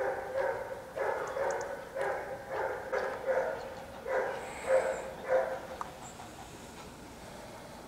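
A dog barking over and over, quick barks about two or three a second, which die away about five and a half seconds in.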